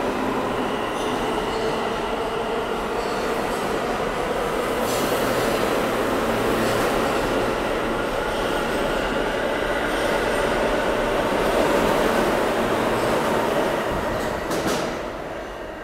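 New York City R160 subway train pulling out of an underground station: steady noise of steel wheels on rail and the traction motors with a faint whine. A sharp clank near the end, then the sound fades as the last car leaves into the tunnel.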